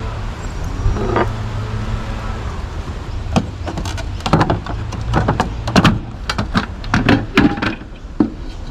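Washing-machine parts being handled during dismantling: scattered sharp knocks and clicks of hard parts, more frequent in the second half, over a steady low rumble.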